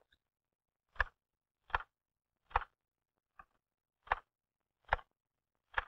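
Manual typewriter keys struck one at a time, about seven sharp clacks evenly spaced a little under a second apart with silence between. This is the slow, even stroking rhythm of a beginner who leaves spare time between strokes.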